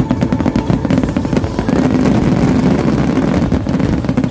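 Fireworks finale barrage: many shells bursting in rapid succession, their crackling reports running together into a continuous rumble.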